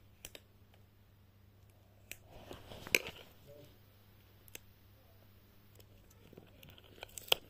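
Faint clicks and rustling of fingers handling a small plastic toy jump rail while pressing and smoothing a sticker onto it, with a sharper click about three seconds in and a few more clicks near the end.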